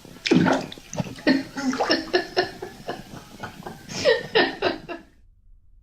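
A baby's voice babbling and chuckling in a string of short, pitched bursts, then cutting off suddenly about five seconds in.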